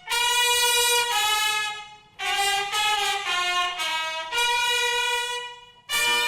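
Instrumental music led by a brass instrument such as a trumpet, playing long held notes in two phrases. The first phrase fades out about two seconds in; the second begins at once and fades near the end.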